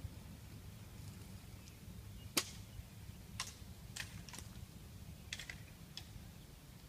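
Half a dozen sharp clicks or snaps at uneven intervals, the loudest about two and a half seconds in, over a low steady rumble.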